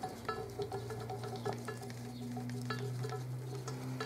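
Small metallic clicks and scrapes of a connecting rod, its bearing cap and rod bolts being handled and fitted to the crankshaft, over a steady low hum.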